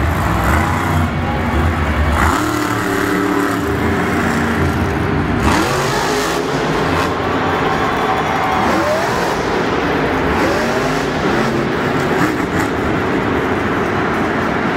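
Monster truck's supercharged V8 engine revving hard, its pitch rising and falling repeatedly as the truck is driven around the dirt floor and pulls up onto its rear wheels.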